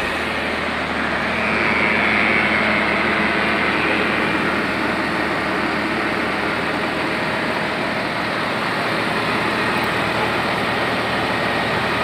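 Diesel engine of a wheeled heavy machine running steadily, with a faint steady high whine over it.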